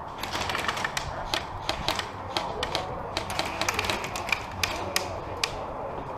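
Airsoft gunfire in a skirmish: a scatter of sharp, irregular clicks and cracks, several a second, that thins out near the end.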